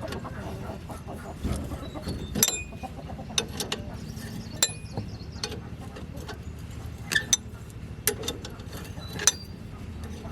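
Irregular sharp metallic clinks and knocks, about a dozen, over a steady low hum, typical of hand tools working on metal tractor parts.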